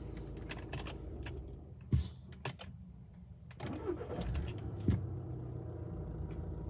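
VW 2.0 TDI (CJAA) four-cylinder diesel idling, switched off with a click about two seconds in, then after a short quiet pause cranked and restarted near the four-second mark, settling back to idle. This is a key-cycle test, checking that the EGR insufficient-flow fault (P0401) does not come back.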